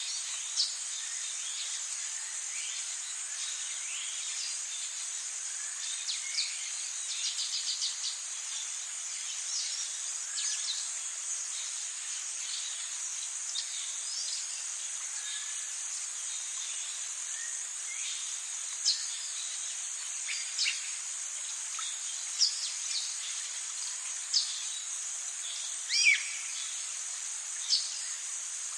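Tropical forest ambience: a steady, high-pitched insect chorus with birds calling over it in short, sharp chirps and whistles, including a quick run of notes about seven seconds in and a string of louder single calls in the second half.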